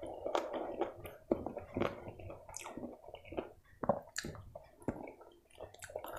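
Close-miked wet chewing and lip smacking of chicken curry and rice eaten by hand, with squishy sounds of fingers mixing the rice. It comes as a run of irregular short smacks and clicks.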